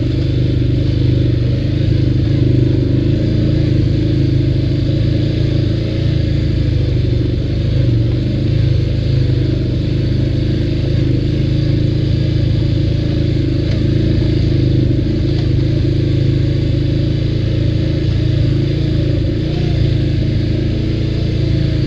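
ATV engine running at a steady speed while the quad is ridden along a trail.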